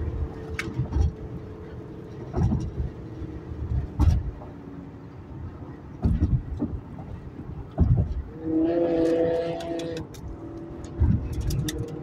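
Engine and road noise inside the cabin of a 2011 Acura TL with its 3.5-litre V6 under hard acceleration at highway speed. Repeated low thumps every second or two, and a steady humming note for about a second and a half around nine seconds in.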